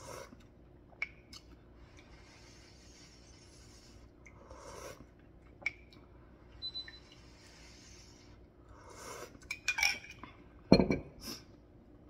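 Metal spoon clinking against a ceramic mug of hot chocolate and dishes, with soft sips from the spoon between the clinks. A quick run of clinks and one louder dull knock come near the end.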